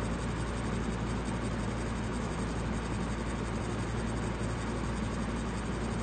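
Ceiling fan running: a steady hiss of moving air with a low hum underneath.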